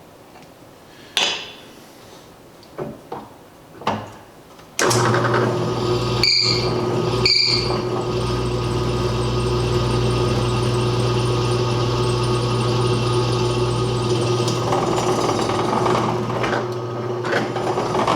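A few light knocks and clicks, then an electric drill starts about five seconds in and runs steadily, drilling out the middle of a broken bolt to widen the hole. It cuts out briefly twice soon after starting, and the sound grows rougher near the end.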